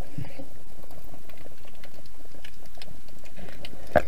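Underwater sound picked up by a camera in a waterproof housing: a steady low rushing noise of the water with scattered small clicks and crackles, and one sharper click just before the end.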